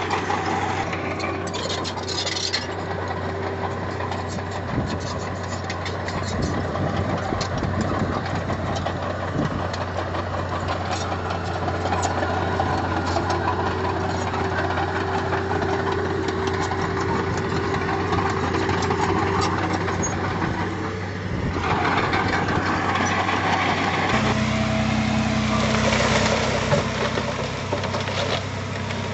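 Diesel engine of heavy earthmoving equipment running steadily, with scattered clanks and rattles. Near the end the engine note changes and grows a little louder.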